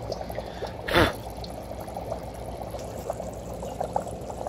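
Dry ice bubbling and gurgling in water in a stainless steel bowl, a steady run of small pops, with a brief rush of noise about a second in.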